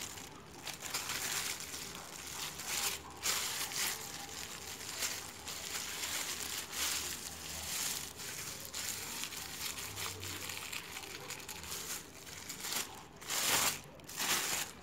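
Plastic bag crinkling and rustling as bakso meatball dough is squeezed and shaped by hand inside it, irregular throughout with a louder stretch near the end.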